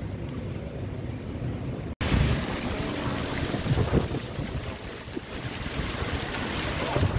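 Outdoor street ambience with a low rumble until a cut about two seconds in. After the cut, a large public fountain's water jets splash steadily into its stone basin, a continuous rushing hiss, with occasional gusts of wind buffeting the microphone.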